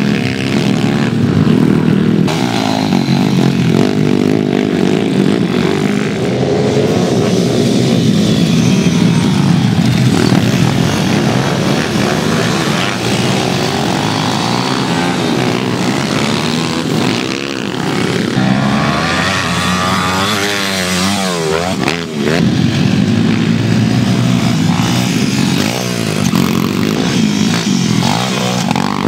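Pitbikes' small engines racing on a dirt motocross track, revving up and falling back as the bikes accelerate and shift. There is a quick run of rising and falling revs a little past two-thirds of the way through.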